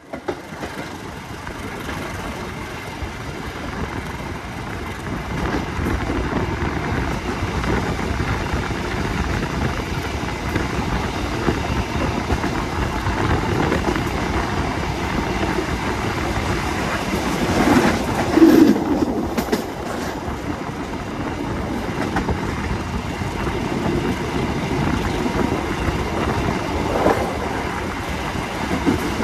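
Diesel-hauled passenger train running along the line: a steady rumble of the moving train, with one louder moment about eighteen seconds in.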